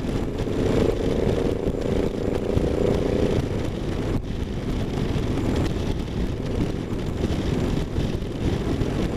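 A V-twin cruiser motorcycle riding at highway speed: its engine running under heavy wind noise on the microphone, with a steady drone over the first three and a half seconds.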